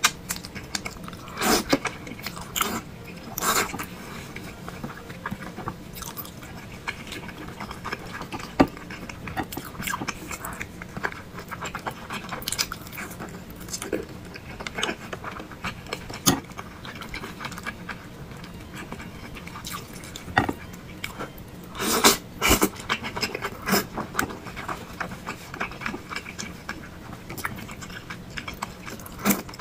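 Close-miked eating sounds of a person chewing and biting thick noodles and meatballs: irregular wet smacks and clicks, with a few louder clusters of bites, over a faint steady hum.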